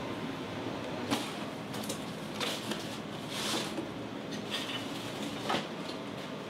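A handful of short knocks and clatters, about one a second, over a steady background noise, one of them a longer rattling clatter midway.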